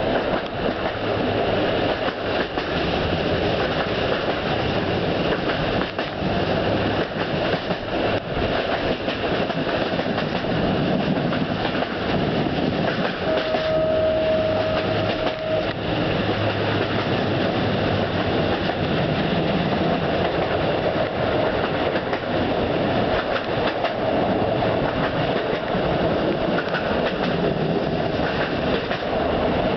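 Passenger train running along the track, heard from aboard: steady running noise with the wheels clicking over rail joints. A single steady tone sounds for about two seconds near the middle.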